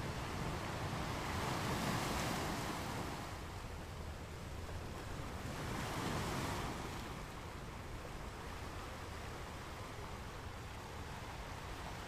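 Steady rushing of rain with wind, swelling in two gusts about two and six seconds in.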